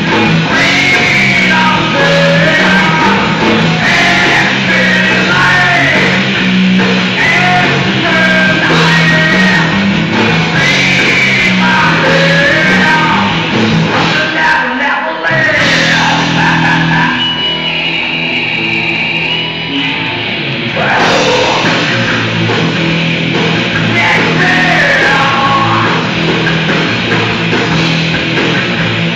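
Live thrash metal band playing: distorted electric guitars, bass and drum kit with a sung, shouted vocal. About two-thirds of the way in the vocal stops for a few seconds under a single high held tone, then the full band comes back in.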